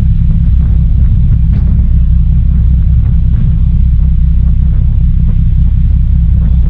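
Passenger ferry's engines running with a steady low rumble, heard from the open deck, with a fainter hiss of water rushing along the hull.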